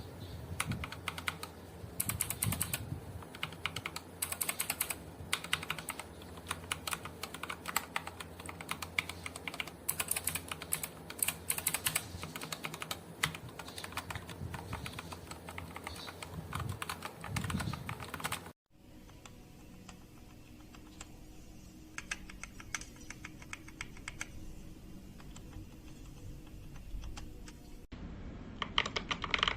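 Typing on a keyboard fitted with lubed Gateron Optical Yellow linear switches: a fast, steady run of keystroke clacks. About two-thirds of the way in the sound cuts to a quieter take of the same typing, and near the end to a louder one.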